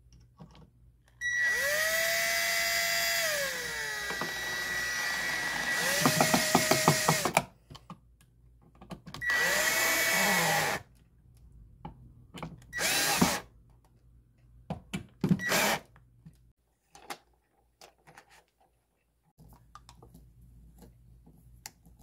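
Cordless drill/driver driving long wood screws to pull a GFCI receptacle into its wall box, run in several bursts. The motor whines up to speed and winds down each time, with a quick run of clicks about six seconds in, and a few short blips later.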